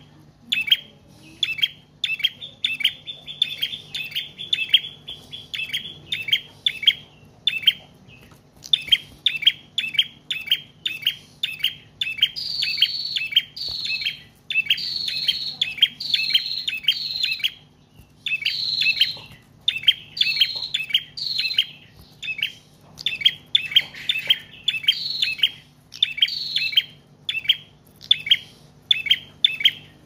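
Caged prenjak trotol singing continuously: a fast run of short, sharp chirping notes, several a second, broken by brief pauses, with higher notes mixed in from about halfway.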